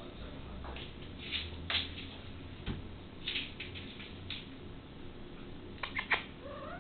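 A cat playing with a small toy mouse on a hard vinyl floor: scattered short scuffs and skitters of paws and toy on the floor, with a quick run of sharp clicks about six seconds in.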